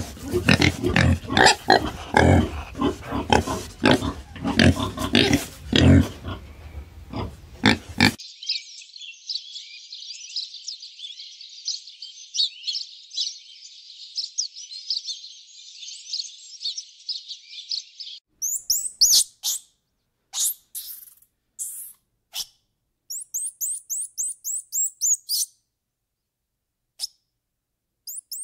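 Wild boar grunting and squealing in quick short calls for the first eight seconds or so. This cuts to a flock of house sparrows chirping in a steady busy chatter. From about eighteen seconds, scattered sharp, very high chirps and short quick runs of rising notes follow, with gaps of silence between them.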